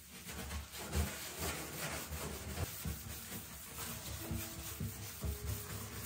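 Handled scrubbing brush scrubbing the inside of a bathtub in rhythmic back-and-forth strokes, about three a second.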